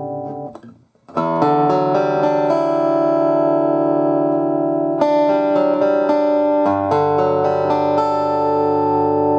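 Amplified guitar playing through a portable amplifier. A ringing chord dies away, and after a brief gap a quick run of picked notes follows. A new chord is struck about five seconds in, with a lower bass note joining shortly after and the chord left ringing.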